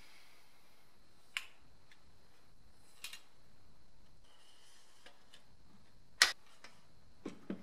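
A few sharp, light clicks and taps as the plastic fuel level sender is handled, against quiet room tone; the loudest click comes about six seconds in, followed by two quick ones near the end.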